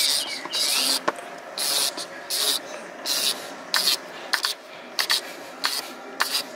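A series of short, irregular rubbing or scuffing sounds, each under half a second, with a few light clicks in between.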